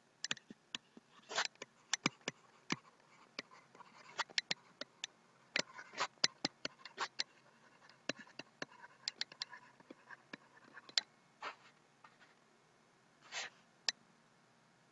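Stylus tapping and scratching on a pen tablet during handwriting: irregular sharp ticks with a few short scrapes.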